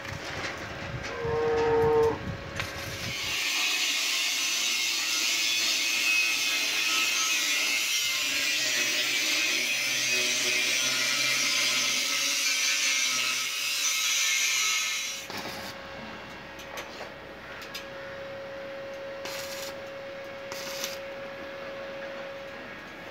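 Corded handheld disc grinder running against a stainless steel handrail pipe, giving a loud, steady, high grinding hiss that starts about three seconds in and cuts off suddenly about fifteen seconds in.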